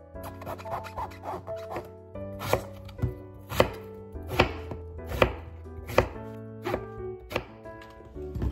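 A chef's knife cutting an eggplant on a wooden cutting board. Quick light cuts come in the first two seconds, then firmer knocks of the blade through the eggplant onto the board, about one every three quarters of a second.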